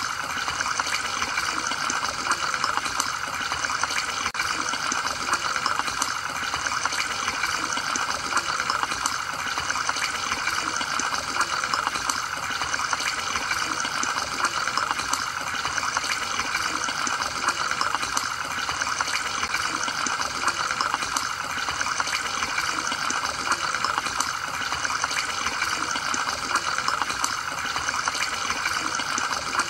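Aquarium sponge filter bubbling steadily, air rising up its lift tube and splashing at the surface, with a constant fine crackle of bursting bubbles.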